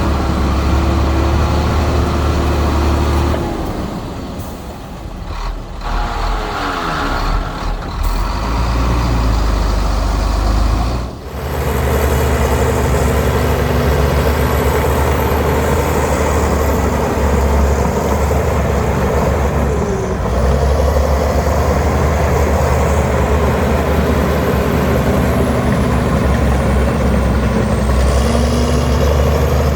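Heavy diesel engine of earthmoving machinery running steadily. Its pitch falls away between about four and eight seconds in, it breaks off sharply near eleven seconds, and it then runs on steadily with a faint high whine.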